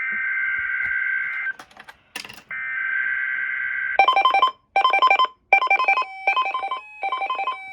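Emergency Alert System tornado-watch broadcast: two buzzy digital header data bursts separated by a short gap with a few clicks, then, about halfway in, a pulsing two-tone alert signal that switches on and off in a repeating pattern.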